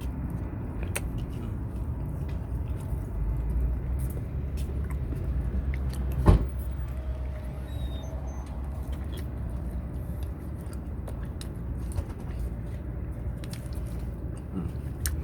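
A person eating a sandwich: small clicks and rustles of handling over a steady low rumble, with one sharp thump about six seconds in.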